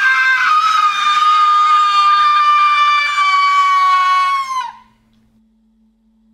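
A person's long, high-pitched scream, held at one pitch for nearly five seconds with a slight downward drift, then cutting off sharply.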